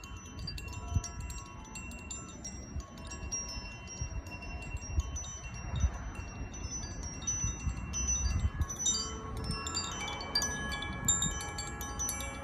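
Zaphir Sunray chime ringing continuously: its clapper strikes the tuned rods in a quick, irregular shimmer of high, overlapping bell-like tones, and lower, fuller tones join about ten seconds in. Dull low thuds sound faintly underneath.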